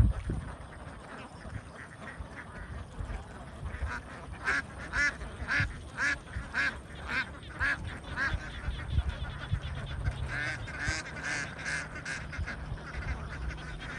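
A flock of domestic ducks quacking, with a run of loud quacks about two a second from about four seconds in, then several calls close together near the end. A single knock sounds right at the start.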